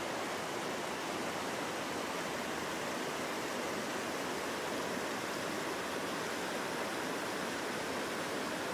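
Steady rushing of flowing water, like a stream or small waterfall.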